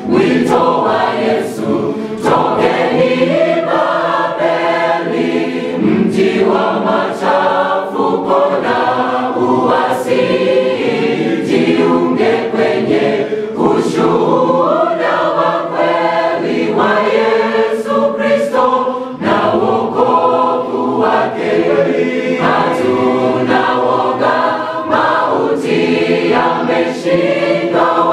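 Mixed choir of men and women singing a Swahili gospel song, continuously and at full voice.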